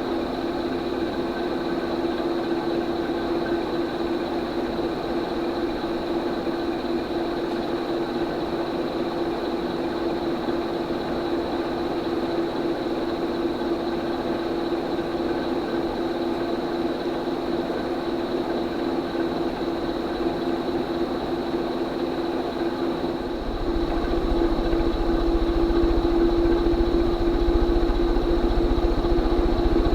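SMC A52 ornate 52-inch ceiling fan running: a steady motor hum with a faint high whine above it. About three-quarters of the way through it grows louder and a low rumble joins in.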